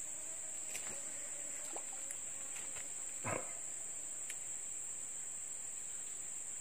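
Steady, high-pitched chorus of insects droning in the undergrowth, with one short dull knock a little past the middle and a few faint ticks.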